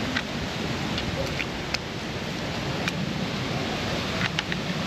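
A steady hiss of background noise with a few light, sharp clicks of small hand tools on the tachometer's terminal nuts.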